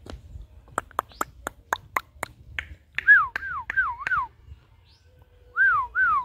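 A bird calling: a quick run of sharp clicks, about four a second, then repeated clear down-slurred whistles, five in a row, a short pause, then three more.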